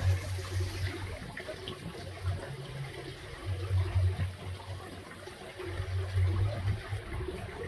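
Small pond waterfall trickling and splashing into a koi pond, a steady watery hiss. A low rumble swells and fades about three times over it.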